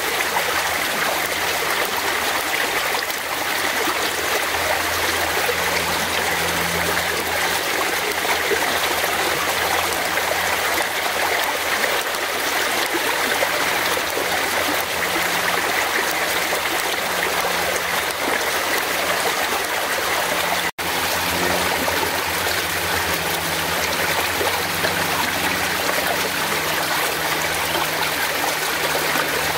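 Fast-flowing forest stream rushing steadily, with one split-second dropout in the sound about two-thirds of the way through.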